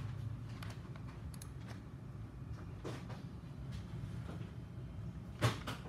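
Quiet room background with a steady low hum, a few faint clicks, and one sharper knock near the end.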